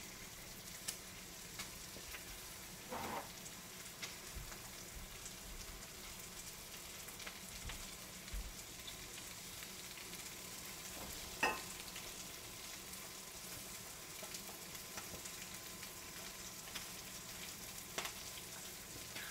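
Chicken thighs frying skin-side down in a stainless steel skillet: a steady sizzle with scattered small pops and crackles, and a few brief louder clicks. It is the fat rendering out of the skin as it browns and crisps.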